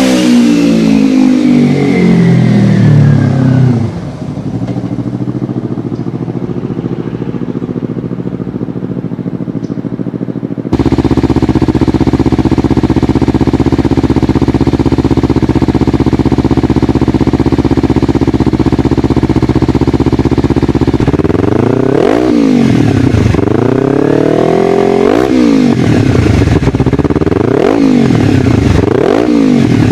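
Kawasaki Ninja 300 parallel-twin engine running. It drops from a rev to a steady idle in the first few seconds, and idles steadily for a while. Then it is blipped repeatedly, about six quick revs that rise and fall back to idle over the last nine seconds.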